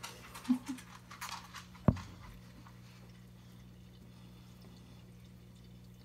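A few faint rustles, then a single sharp knock about two seconds in, the loudest sound, followed by a steady low electrical hum with room tone.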